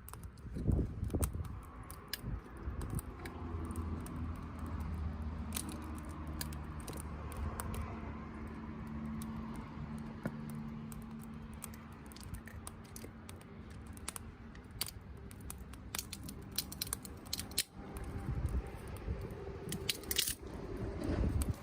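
Wood campfire crackling and popping in irregular sharp snaps. A low steady hum sits underneath through the middle stretch.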